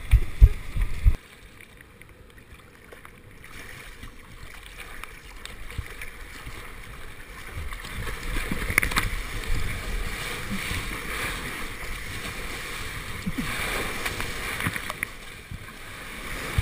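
Sea water sloshing and splashing against a surfboard and the camera's waterproof housing while paddling out through small surf. Loud low knocks and buffeting for about the first second stop abruptly; the water noise then builds slowly with scattered splashes, and is loudest toward the end as whitewater breaks over the board.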